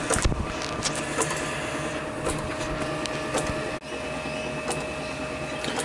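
Lorch toolroom lathe running: a steady mechanical whir with a faint whine and scattered light ticks.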